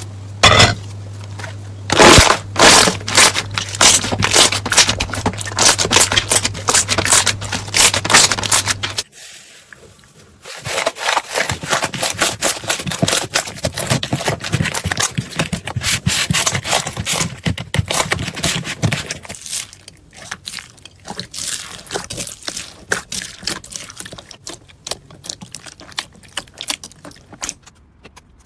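Slime being squeezed and pressed, giving dense crackling and popping clicks. The sound changes abruptly twice, about nine and nineteen seconds in, as one slime clip gives way to another.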